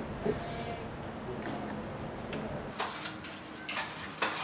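A few scattered light clinks and knocks of bottles and cups being set down on a wooden restaurant table, over a low background murmur of the dining room.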